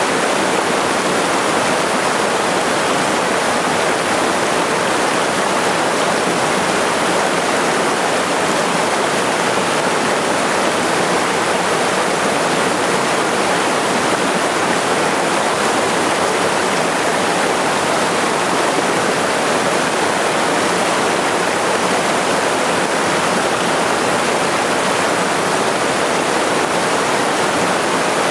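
Small waterfall cascading over mossy rocks into a pool in a mountain stream: a steady, unbroken rushing of water.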